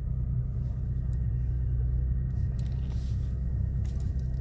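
Toyota Tacoma TRD Off-Road truck running at a low, steady crawl up a steep rocky incline: a constant low engine and drivetrain rumble, with a few faint knocks.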